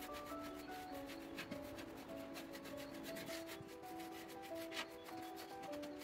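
A paintbrush scrubbing metallic paint onto the rusty sheet-metal body of a wood stove, in many quick, short strokes. Soft background music with a slow melody plays underneath.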